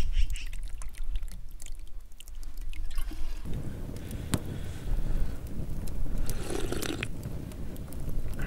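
Hot khorkhog broth ladled into a small metal bowl, with a spoon clinking and liquid pouring. Then, with low wind rumble on the microphone, a person sips the hot broth from the bowl.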